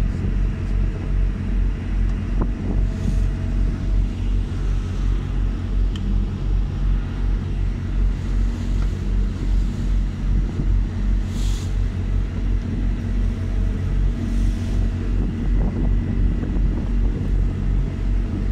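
Small boat's engine running under way: a low drone that pulses evenly a few times a second, over the rush of water past the hull, with a few brief hisses.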